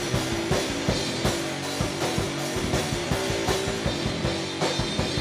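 Rock band playing an instrumental passage: a drum kit keeps a steady beat under sustained guitar and bass notes, with no vocals yet.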